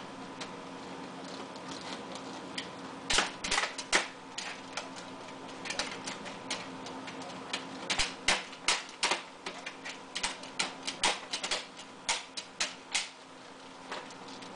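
Computer keyboard keys clacking irregularly as a baby presses and slaps at them with both hands: a few scattered clicks, a quick cluster about three seconds in, then a longer run of busy clicking that thins out near the end.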